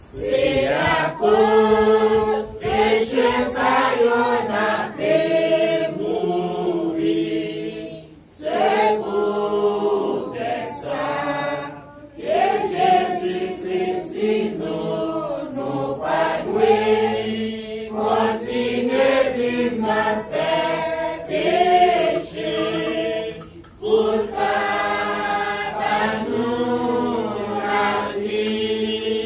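Church congregation singing a hymn together, in long phrases with short breaks between them.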